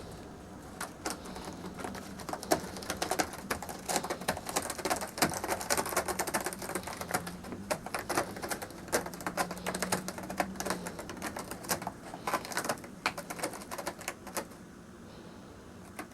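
A Bombay cat's claws scratching rapidly at a new cat scratcher, a dense run of quick scraping strokes that stops shortly before the end.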